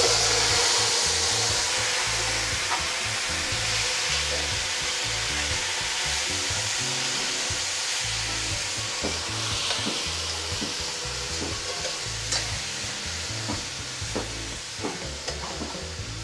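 Chicken pieces sizzling in browned sugar and oil in a hot aluminium pot, loudest at the start and easing slowly: the meat is browning in caramelised sugar for pelau. In the second half, a metal spoon stirs the meat and clicks against the pot.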